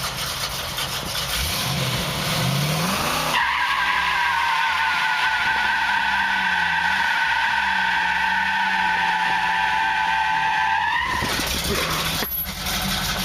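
A 350 V8 in a 1959 Chevy pickup revs up, then the rear tires spin in a burnout. A steady, high tire squeal sets in after about three seconds and holds for some seven seconds before stopping. The engine runs on underneath.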